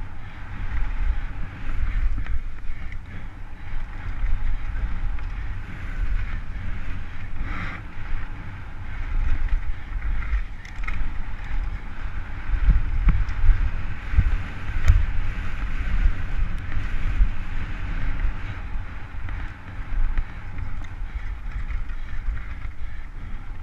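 Wind buffeting a helmet camera's microphone over the rumble of a downhill mountain bike's tyres on a dry, rough dirt trail at speed, with occasional knocks over bumps.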